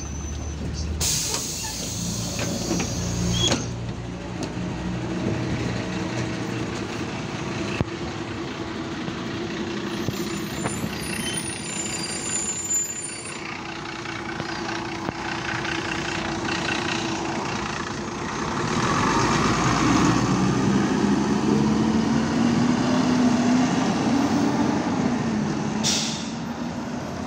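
MAN Lion's Classic city diesel bus at a stop: a burst of compressed-air hiss about a second in, then the engine running steadily. From about 18 seconds in it gets louder as the bus pulls away, its engine note rising as it accelerates, with another short air hiss near the end.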